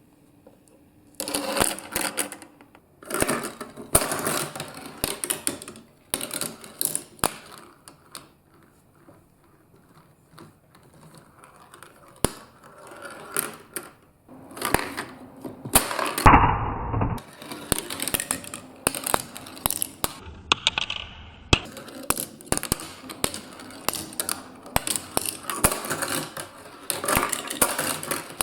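Marbles rolling and clattering down a block marble run: bursts of rapid clicks and rattles starting about a second in, with short pauses between runs and a heavier, duller rumble a little past halfway.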